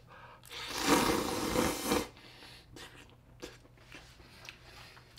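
A long noisy slurp of noodles sucked in off chopsticks, lasting about a second and a half. Then faint chewing with small clicks.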